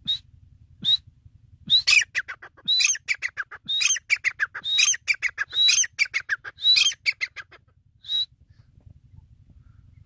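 Grey francolin calling. A couple of single sharp, high notes come first, then a run of loud, rapidly repeated phrases about once a second for some six seconds, and a last single note near the end.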